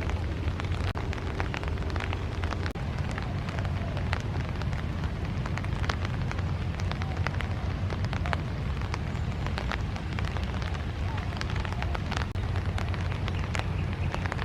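Rain falling steadily, with many sharp drop ticks over a continuous hiss and a low rumble.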